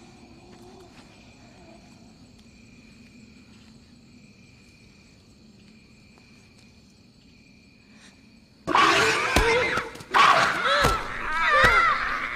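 Night insects chirring steadily in thin high tones. About nine seconds in, this breaks into loud screaming and shrieking, with several hard thumps.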